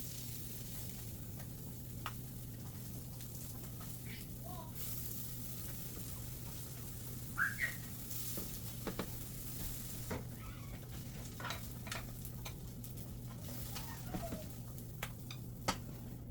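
Food sizzling as it fries in a pan, with scattered light clicks of a utensil against the pan. A couple of short high squeaks stand out about halfway through.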